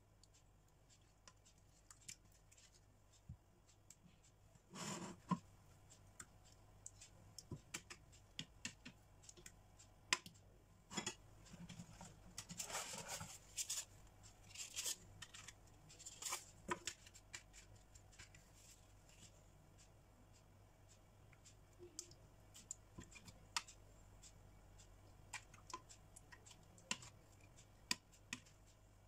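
Faint clinks and scrapes of a metal serving spoon against a glass baking dish and bowl as a creamy spinach sauce is spooned in and spread, with scattered sharp clicks and a few louder scraping bursts.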